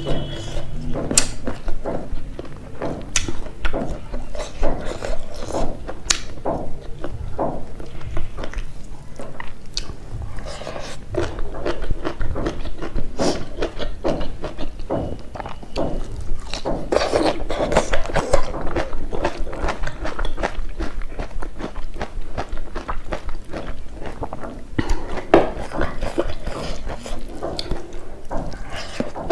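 Close-miked chewing and mouth sounds of food eaten by hand, a dense run of small wet clicks and crunches. Near the end a piece of boiled bok choy is bitten.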